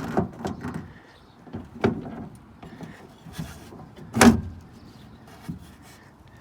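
Knocks and rattles of a door lock actuator and its rod being worked loose inside a car door shell: a cluster of knocks in the first second, another near two seconds, and the loudest single knock about four seconds in.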